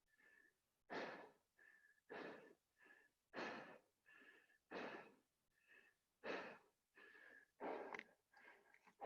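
Heavy, rapid breathing of a person out of breath from doing burpees. A strong breath comes about every second and a half, and a softer breath with a faint whistling wheeze falls between each pair.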